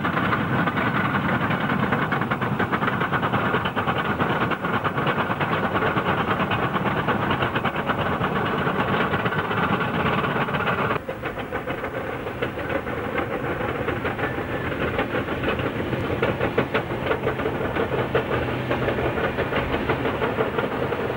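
Heavy earthmoving machinery at work: the diesel engines of a Caterpillar D11R crawler dozer and a wheel tractor scraper running under load, a steady engine noise with a rapid clatter. The sound changes abruptly about eleven seconds in.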